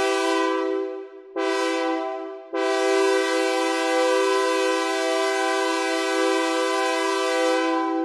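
AudioKit Synth One software synthesizer sounding a three-note sawtooth chord as an imitation train horn: a blast that breaks off about a second in, a short blast, then a long steady blast.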